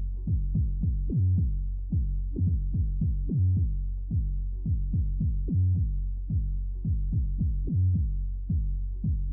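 Electronic music with a steady drum-machine beat over a sustained bass line, dull-sounding with nothing in its highs.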